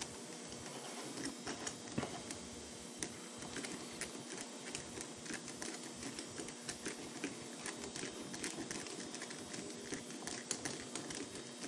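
Allen wrench turning in the small mounting screws of a Walbro carburetor, loosening them: light, irregular metallic clicks and ticks, with a faint steady hum underneath.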